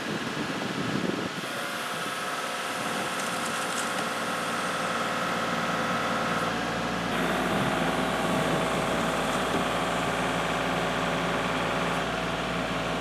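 Kubota L3301HST tractor's three-cylinder diesel engine running steadily, its tone changing about halfway through.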